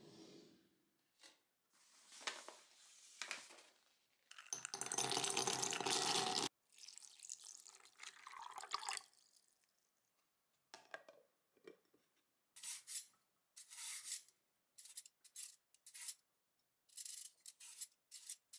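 A sequence of kitchen sounds: a drawer sliding open, then water running for about two seconds, the loudest sound, and later a quick series of short scraping strokes as a julienne peeler shreds a carrot.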